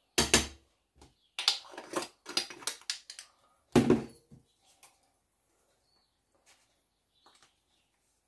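Teaspoon and spice jar knocking and clinking against a stainless steel mixing bowl and bench while spices are measured out: two sharp knocks, a quick run of clicks and rattles, then a heavier knock about four seconds in.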